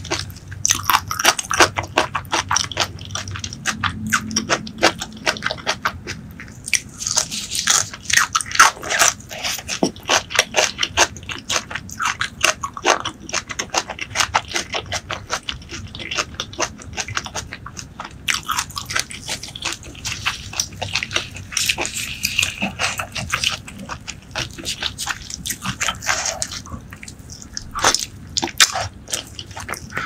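Close-miked crunching and chewing of fresh green vegetable stalks, a dense run of irregular crunches with short lulls in between.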